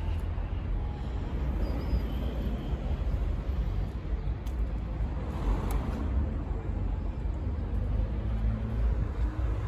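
FB Mondial Pagani 1948's 125 cc engine idling steadily, a low even rumble.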